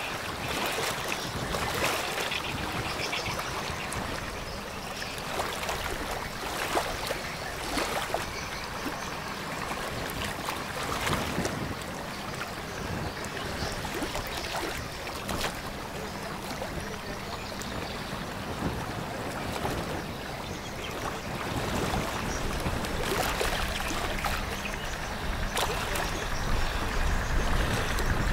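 Water rushing and splashing in the bow wave and wake of a passing container ship, with scattered brief splashes and a steady low boat-engine hum that gives way near the end to a deeper rumble.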